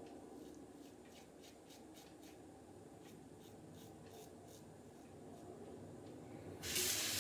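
Rockwell 6S safety razor with a Polsilver SI blade scraping through lathered stubble on the cheek: a run of short, faint rasping strokes, about two or three a second. Near the end a tap is turned on and water runs loudly.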